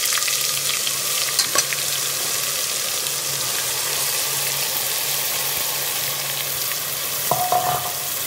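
Onion, ginger and garlic paste sizzling in hot oil in an aluminium pressure cooker as it is stirred with a spatula. A few clicks of the spatula on the pot come about a second in, and a short scrape comes near the end.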